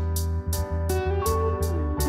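Background music led by guitar over a steady low bass, with short sharp ticks recurring about three times a second.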